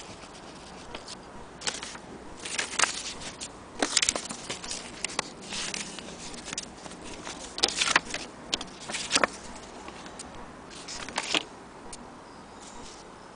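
Old paper documents and booklets rustling and crinkling as they are handled and shuffled through, in irregular bursts that are loudest about four and eight seconds in.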